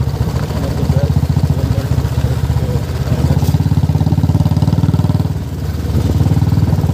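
Motorcycle engine running steadily, heard from on the moving bike, with a slight dip in level about five and a half seconds in.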